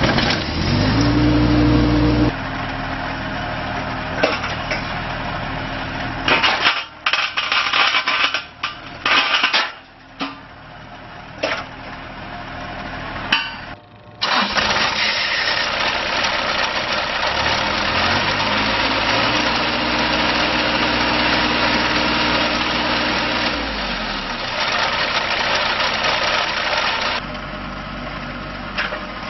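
2010 John Deere 27D mini excavator's diesel engine starting and running. It is revved up and brought back down twice. A stretch of broken, uneven sound comes in the middle.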